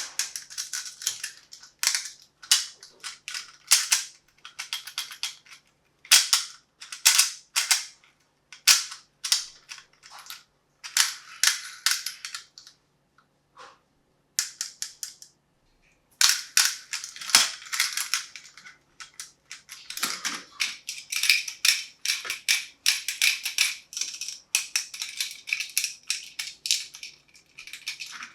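Irregular hard clicks and clatter of small plastic and die-cast toys being handled and set down, in quick clusters with a pause about halfway, becoming denser near the end.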